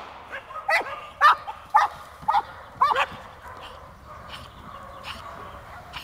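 Dog barking: about seven short barks in quick succession over the first three seconds, then it stops.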